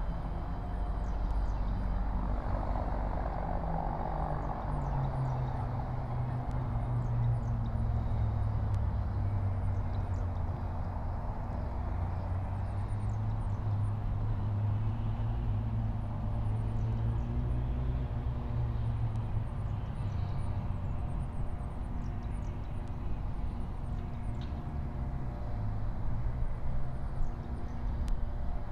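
A steady low engine drone, such as distant traffic or a passing aircraft, whose pitch sinks a little a few seconds in, with faint high chirping scattered over it.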